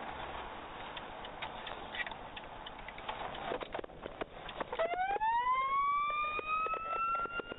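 Emergency vehicle siren starting about two-thirds of the way in, winding up in a slow rising wail. Before it there is a steady rushing noise with scattered clicks.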